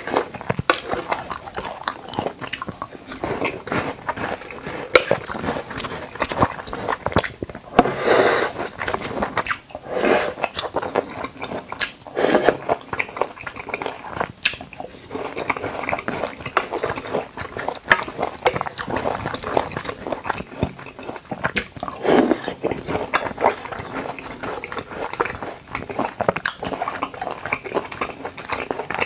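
Close-miked mouth sounds of a man biting and chewing watermelon chunks with konjac jelly: a dense run of small wet clicks, with several louder bursts along the way.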